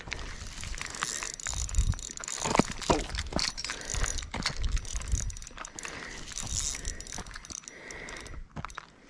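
Spinning reel being cranked to bring in line: a whirring of the gears with many small clicks. Low rumbling in roughly the first three seconds.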